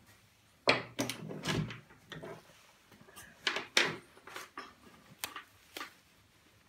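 Hands handling a carved wooden relief panel and a small carving bit: a string of short, irregular knocks, taps and brushing rubs on wood, with a few small clicks.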